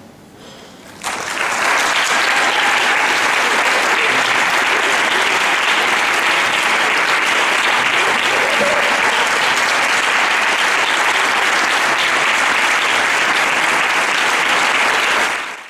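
Audience applauding, starting suddenly about a second in and going on steadily until it is cut off at the end.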